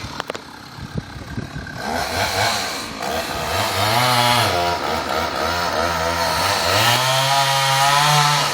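A few sharp knocks, then a chainsaw engine revving up and down repeatedly, its pitch rising and falling with the throttle, which cuts off near the end.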